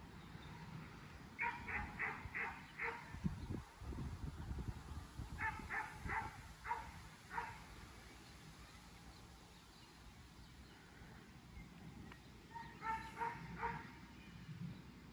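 A dog barking in three quick runs of about five barks each, several seconds apart.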